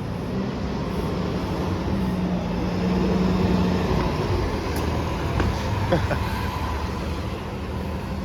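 Diesel transit bus engine running as the bus passes close by, over a steady traffic rumble. Its low drone swells about two to four seconds in, and a few light clicks follow.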